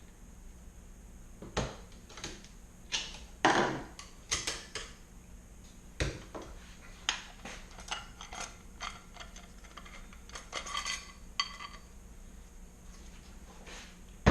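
Scattered metallic clinks, clicks and knocks of steel transmission parts being handled as a 4L80E's direct drum is popped open to get at its clutch pack, with the sharpest knocks about three to four seconds in.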